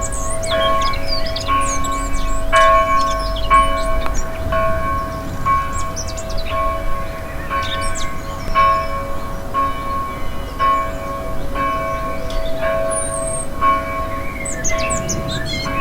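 A church bell ringing about once a second, the same note at each stroke, with birds chirping and twittering over it.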